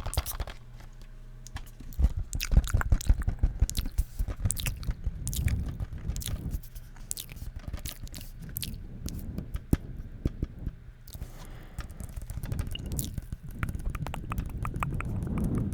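Close-miked fingernail tapping and scratching on a plastic video game case: quick irregular clicks and scrapes, in denser runs about two seconds in and near the end.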